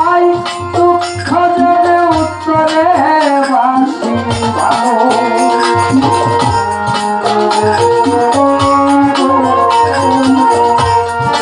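Violin bowed through an instrumental passage of a Bengali Baul folk song, its melody sliding between held notes. Underneath it run a steady beat of drums and rattling percussion and a sustained accompaniment.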